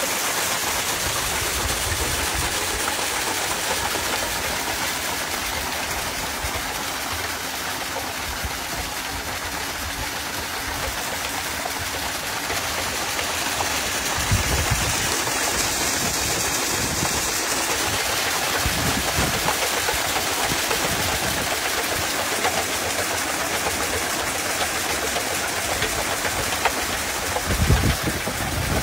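Electric centrifugal water pump running steadily, its jet of water splashing onto a spinning wheel of metal dish blades in a continuous rush of spray. A couple of low thumps come about halfway through and near the end.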